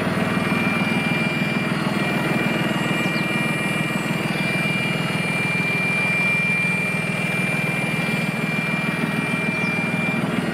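John Deere 5065E tractor's three-cylinder diesel engine running steadily, with a thin steady high whine over it that stops near the end.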